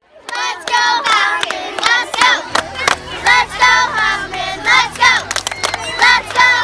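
A group of young children shouting and cheering together in high voices, with hand claps between the shouts. A low steady hum comes in underneath about two and a half seconds in.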